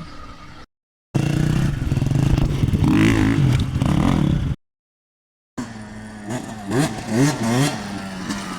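Dirt bike engines revving in short clips broken by two brief gaps of dead silence; in the later clip the engine is blipped, its pitch rising and falling several times in quick succession.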